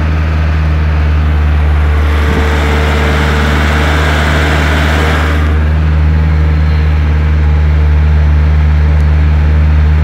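Vehicle engine droning steadily at low speed while climbing a grade, heard from inside the cab. A rushing hiss rises over it from about two seconds in and drops away just past the midpoint.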